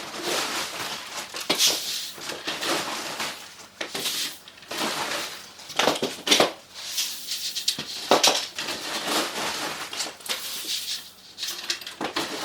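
Horse feed pellets being scooped and poured into feed containers, rattling and clattering in irregular bursts.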